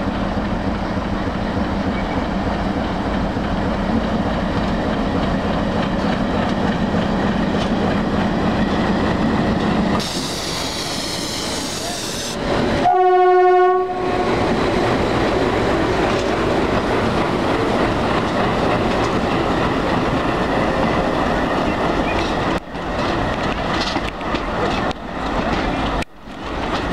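Indian Railways WDM-2B diesel-electric locomotive running as it hauls the train past, with one loud horn blast of about a second midway. Then the coaches roll by with wheels clicking over the rail joints.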